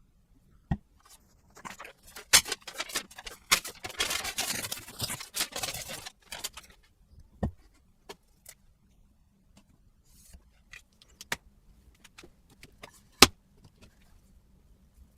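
Objects being handled: scattered sharp clicks and knocks, with a few seconds of dense rustling or scraping from about two to six seconds in.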